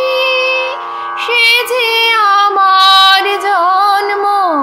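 A high voice singing a Bengali patriotic song in long, held, ornamented notes over a steady instrumental drone; the melody falls near the end.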